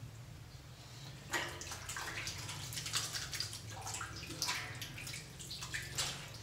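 Wet, sticky crackling and squishing of fluffy slime, a dense run of small pops and squelches that starts about a second in, over a low steady hum.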